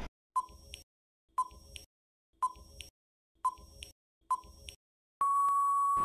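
Quiz countdown timer sound effect: five short ticks with a brief ring, about one a second, then a steady beep about five seconds in that signals time is up.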